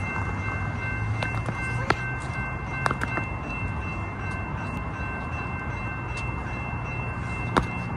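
Railroad crossing warning bells ringing steadily as the crossing activates: the General Signals Type 2 bells that replaced the original mechanical bells. A few sharp clicks cut in.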